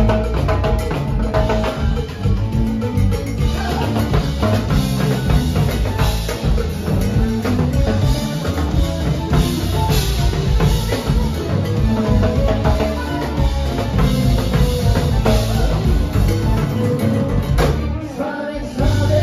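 Live Latin band music: congas, drum kit, electric bass and keyboard playing a steady groove, with singing. The bass and drums drop out briefly near the end.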